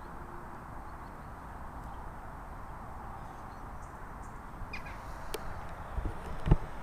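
Outdoor ambience: a steady background hiss and rumble with a few faint distant bird calls, crow-like caws among them. A single low thump comes near the end and is the loudest sound.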